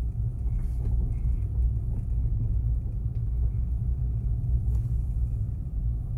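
Car driving slowly on a snow-covered street, heard from inside the cabin: a low, steady rumble of engine and road.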